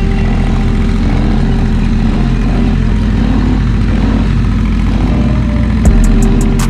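ATV engine running steadily under way. Near the end a thump, then a fast, regular ticking starts up.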